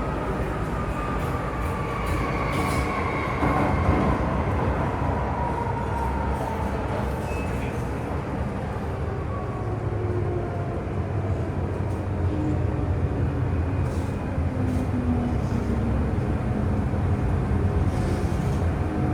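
Interior running noise of an MTR Tsuen Wan line M-Train car: a steady rumble of wheels and motors, with a whine that falls in pitch over the first few seconds.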